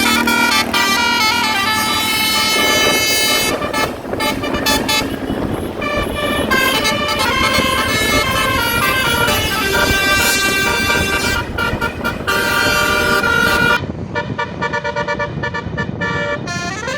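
Basuri 'telolet' musical air horn on a QQ Trans tour bus, playing a tune in stepped notes, one phrase running straight into the next.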